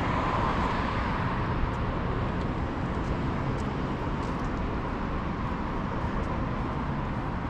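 Steady street traffic noise from cars on the road alongside, a little louder in the first second or so.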